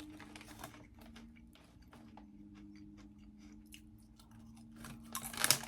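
Close-miked chewing of crunchy snack chips: small crackling crunches, getting louder and denser near the end.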